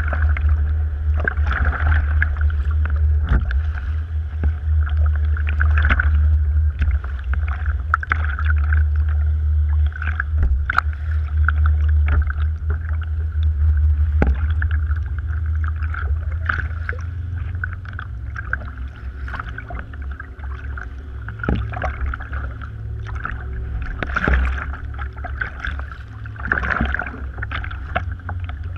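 Kayak paddle strokes and choppy water splashing and slapping against a sit-on-top kayak's hull, with irregular sharp splashes, over a steady low rumble of wind and water on the bow-mounted camera.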